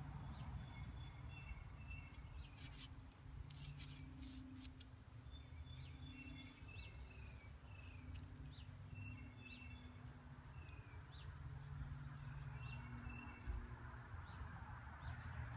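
Small birds chirping repeatedly in short high notes and flicks over a low steady rumble. There are a few brief rustles about 2.5 and 4 seconds in.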